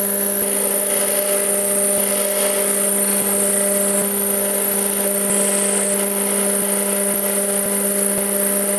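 Power tool running steadily at a constant pitch, with a strong high hiss.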